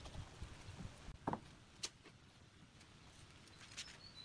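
Soft knocks and clicks of small pine blocks being handled and set down on a wooden frame, with one sharper knock about a second in.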